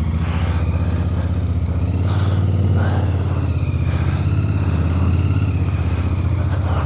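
Royal Enfield Bear 650's 648 cc parallel-twin engine running steadily.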